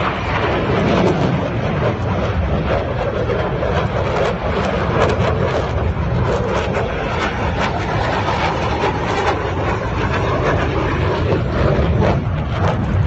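Formation of fighter jets flying past: a loud, steady jet-engine roar.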